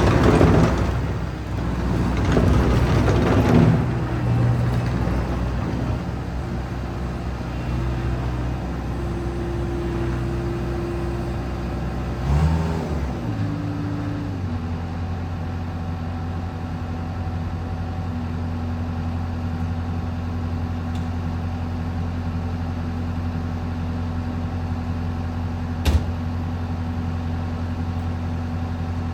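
Bobcat T190 compact track loader's turbo diesel engine running, loudest for the first few seconds. About twelve seconds in, its pitch falls and it settles to a steady idle, with one short click near the end.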